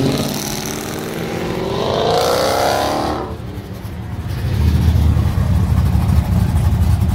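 A car accelerating hard away, its exhaust note rising in pitch for about three seconds before fading. From about four and a half seconds in, a pickup truck's loud, deep exhaust rumbles close by as it pulls out.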